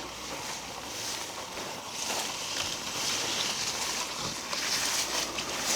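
Footsteps crunching and rustling through dry fallen leaves, growing louder about two seconds in, with a few sharp crackles near the end.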